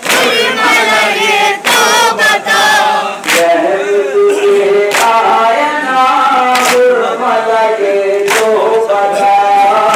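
A group of men chanting a noha, a Shia lament, in unison, crossed by sharp hand slaps on the chest (matam) that fall about every second and a half in the second half.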